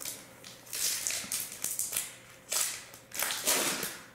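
Hockey trading cards being handled and slid against one another: a series of short papery rustles, about five in four seconds.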